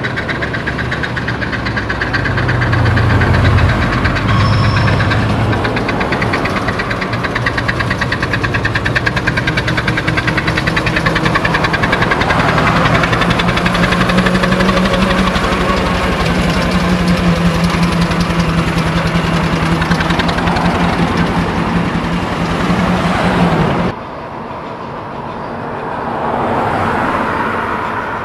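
Foden overtype steam wagon driving past, its exhaust beating in rapid even chuffs with mechanical clatter and a steady low hum. The sound cuts off suddenly about 24 seconds in, leaving quieter road traffic with a vehicle passing near the end.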